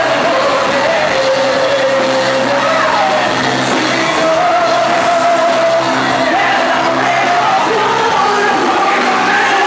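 Amplified worship music with a woman leading the singing through a microphone, holding long notes, and shouts and yells from the congregation, ringing in a large hall.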